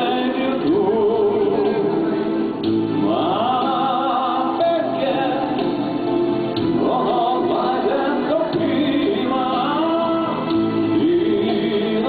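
Background song: a male singer holds long, wavering phrases over a steady instrumental accompaniment.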